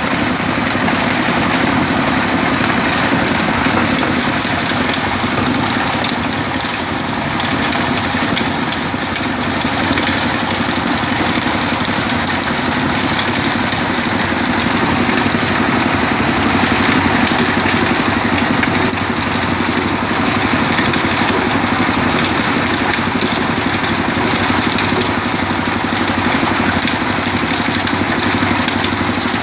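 Stone-crushing sand machine running steadily: a continuous engine-like drone with a dense hiss over it.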